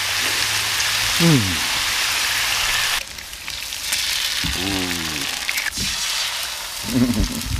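Bacon frying on a flat-top griddle: a steady sizzling hiss that drops suddenly about three seconds in, after which sharp little pops crackle through it.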